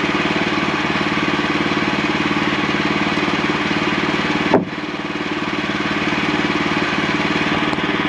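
The gas engine of a portable bandsaw sawmill running steadily at idle while the blade is not cutting. A brief sharp sound comes about halfway through, after which it is a little quieter.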